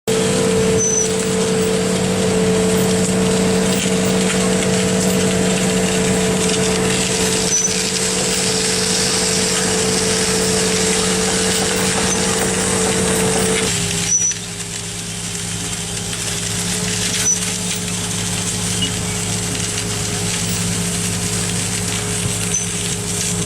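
A construction machine's engine running steadily with a constant droning hum. About fourteen seconds in the sound drops a little and the hum changes pitch, then runs steadily again.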